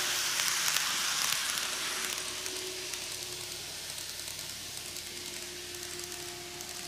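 N-gauge KATO model train of the JR Shikoku N2000 series, five cars, running on curved track: the hiss of wheels rolling on the rails with a faint steady motor whine, fading as the train moves away.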